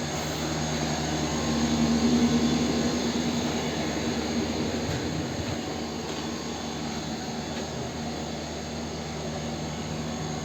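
Swimming pool heat pump running: a steady mechanical hum with a whooshing air noise, growing a little louder about two seconds in.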